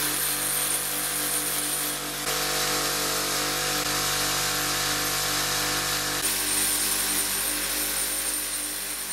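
Bench grinder running with a steady motor hum and a hiss as its wire brush and buffing wheels clean and polish small metal furniture handles. The sound shifts abruptly twice and fades near the end.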